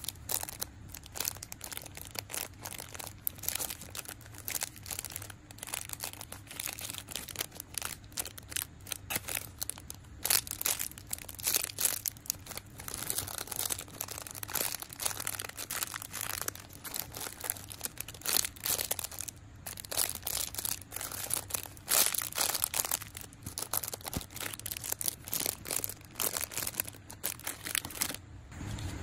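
Clear plastic bags crinkling in quick, irregular crackles as the mini squishy toys sealed inside them are picked up and handled.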